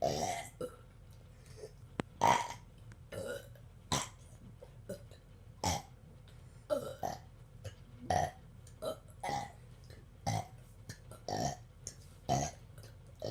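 People burping over and over in a burping contest: short separate burps, about one a second.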